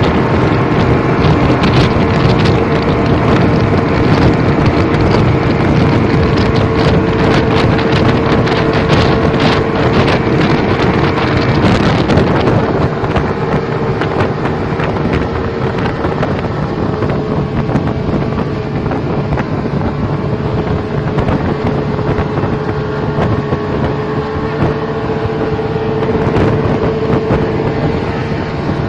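Yamaha 200 hp outboard motor running steadily at speed on a speedboat, mixed with wind blowing on the microphone and rushing water from the wake. In the first half there are many sharp slaps and gusts; about halfway through the hiss eases and the engine's steady drone is left plainer.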